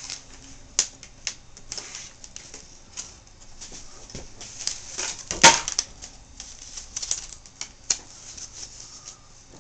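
Plastic display bezel of an MSI U135 netbook being pried loose by fingernails: scattered clicks and scratches of plastic, with one loud snap about five and a half seconds in as the frame pops loose.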